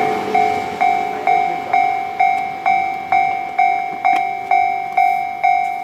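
Japanese railway level-crossing warning bell ringing steadily, about two strikes a second, each strike decaying before the next. A passing train's running noise dies away at the start.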